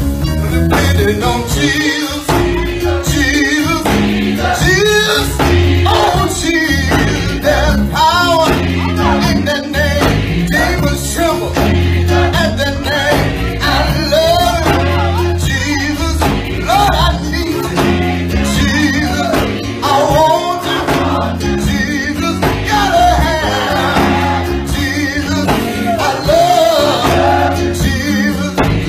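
Gospel song: a man sings lead into a microphone, with choir voices and instrumental backing beneath him.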